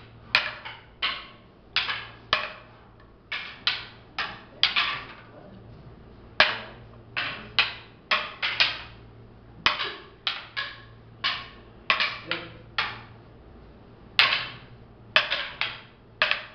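Wooden fighting sticks clacking together in a sparring drill: sharp strikes in quick runs of two to four, each with a short ring, following one another irregularly throughout.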